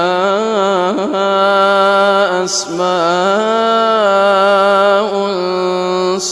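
A man chanting Quran recitation in long, held melodic notes, the pitch bending and turning within each note, with a short hissing 's' sound about two and a half seconds in and again at the end.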